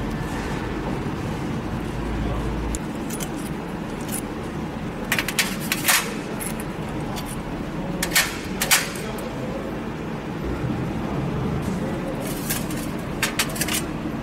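Small metal clinks and taps as screws, tools and the solenoid valve of a CAT 3126B fuel injector are handled and set down on a stainless steel tray. The clinks come in short clusters about five, eight and thirteen seconds in, over a steady background hum.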